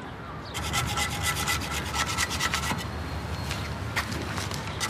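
Hand scrubbing at graffiti on a painted door panel: rapid back-and-forth rubbing strokes that start about half a second in, ease off briefly, then pick up again near the end.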